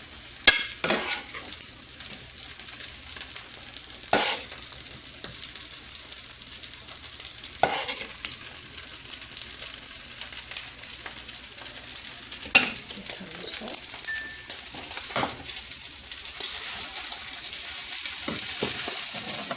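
Food sizzling steadily in a hot oiled skillet, the hiss growing louder near the end, with a few sharp knocks of a utensil against the pan or plate.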